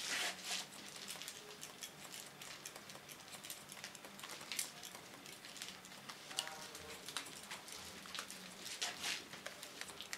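Hairdressing scissors snipping and slicing short wet hair while a comb lifts the sections: a string of short, sharp, irregular snips.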